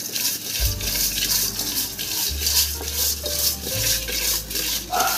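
Hands rubbing and scrubbing tilapia in a steel pot to clean them: a wet swishing in repeated strokes, about three a second, with light clinks against the pot.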